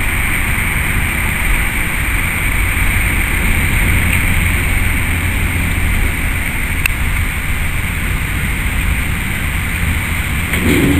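SM30 diesel shunting locomotive running steadily as it slowly pushes two tank wagons along the track, a continuous low rumble.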